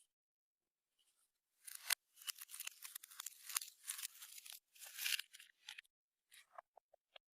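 Clear slime being squeezed and stretched by hand, a dense run of sticky crackles and pops starting about two seconds in, thinning to a few separate pops near the end.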